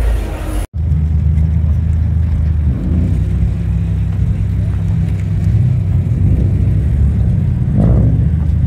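Car engine running steadily with a deep low rumble; less than a second in, the sound drops out for an instant and comes back as the same even rumble.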